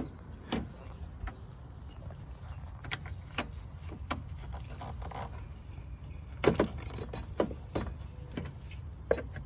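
Scattered hard plastic clicks and knocks as a spill-proof funnel's blue adapter is pushed and twisted onto a coolant filler neck, with a cluster of them about two thirds of the way through, over a steady low hum.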